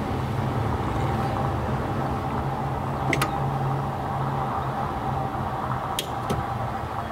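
Steady mechanical hum, with two sharp clicks about three seconds apart as a click-type 3/8-inch torque wrench set to 25 ft-lb is pulled on the steering coupler's 13 mm bolt. The wrench clicks off without the bolt turning, a sign the bolt was already at torque.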